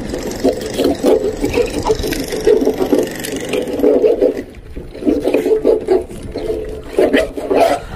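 Hot water gushing and gurgling out of a solar water heater's opened return-pipe fitting while a hacksaw blade scrapes the scale inside it, in uneven bursts with a brief lull a little past halfway.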